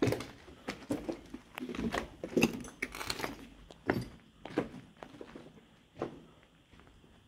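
Footsteps crunching and knocking over a floor littered with broken ceiling tiles, plaster and timber, in an uneven walking rhythm of about two steps a second that thins out near the end.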